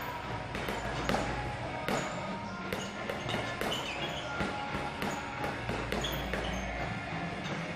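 Boxing gloves striking a hanging heavy bag: short irregular thuds, about two to three a second, with music playing in the background.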